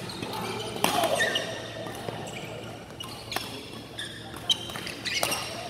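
Badminton rally: rackets striking the shuttlecock several times with sharp cracks, with short high squeaks of shoes on the court floor between hits.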